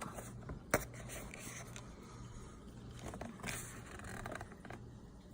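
Faint rustling and scraping of the spicy chocolate's packaging being handled and opened, with one sharp click about a second in.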